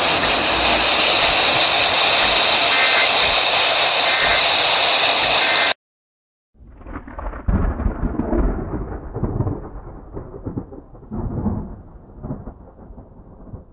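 A loud, steady hiss cuts off abruptly about six seconds in. After a short gap, thunder rolls in a long low rumble, swelling several times and slowly fading.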